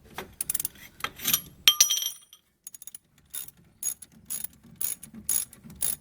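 Ratchet wrench with a 14 mm socket clicking in short strokes as it undoes the brake caliper bolts. A busy run of clicks comes first, then a brief pause about two seconds in, then steady clicks about two a second.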